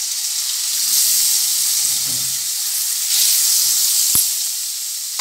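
Paneer cubes sizzling in hot oil in a steel kadai, a steady hiss, with one sharp click about four seconds in.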